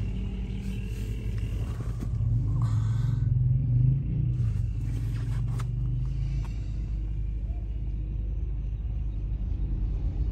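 Low, steady rumble of a car's engine and road noise heard from inside the moving car's cabin, with a few brief sharper noises from outside about three and five seconds in.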